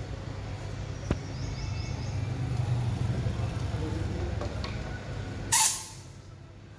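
A steady low mechanical hum with a sharp click about a second in. Near the end comes a short, loud hiss of air, like a blast from a compressed-air nozzle, and after it things are quieter.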